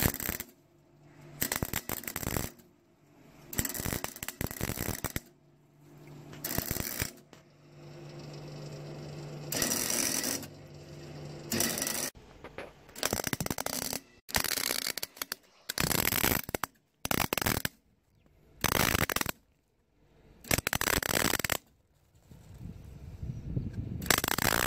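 MIG wire-feed welder tacking and stitch-welding a steel exhaust pipe joint: the arc crackles in about a dozen short runs of half a second to a second and a half, stopping between each, with the welder humming low in the first half.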